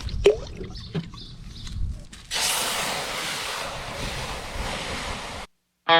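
Water spraying from a garden hose, an even hiss that starts about two seconds in and cuts off suddenly near the end. Before it, a low rumble with a few knocks.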